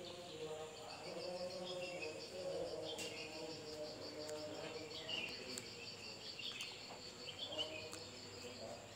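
An insect trilling in a steady, high, rapidly pulsing tone, with short bird chirps now and then.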